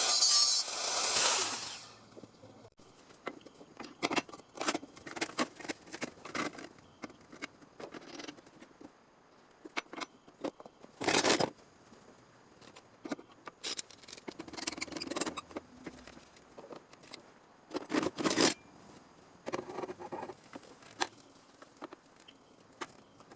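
A power tool runs and stops about two seconds in. Then come intermittent scrapes, clicks and handling noises of workshop work on metal, with two short, louder scrapes.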